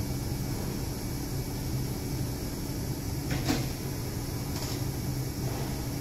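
Metal tool parts knocking and clinking as they are handled and fitted on a steel workbench. There is one sharper knock about halfway through and a lighter tick about a second later, over a steady low machine hum.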